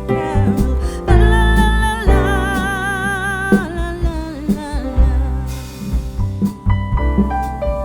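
A song with a singer holding long notes with vibrato over bass, guitar and a steady drum beat.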